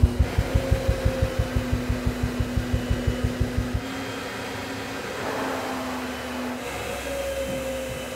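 Cellulose insulation blowing machine running, blowing air and insulation through the fill hose into a wall cavity, with a steady tone. For the first few seconds there is a rapid low pulsing, about five or six beats a second, which stops suddenly a little before the halfway point, leaving a steady blowing hiss.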